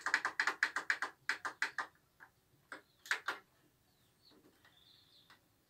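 Rapid clicking of the controls on a Sony mini hi-fi system as CD tracks are skipped: about six clicks a second for the first two seconds, then a few slower scattered clicks before it falls quiet.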